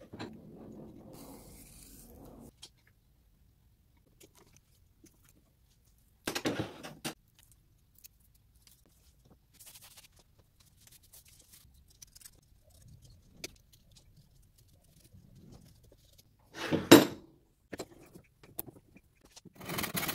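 Intermittent handling sounds of adhesive tape and suede leather being fitted to a wooden vise jaw pad: rustling at first, a short scratchy burst about six seconds in, and a louder one about seventeen seconds in, with scattered small clicks between.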